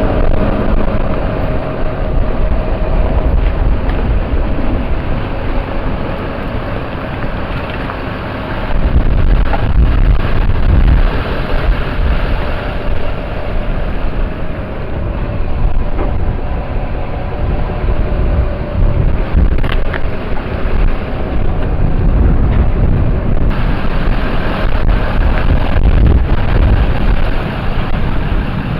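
Loud, steady rumbling noise of a vehicle on the move, with wind noise on the microphone.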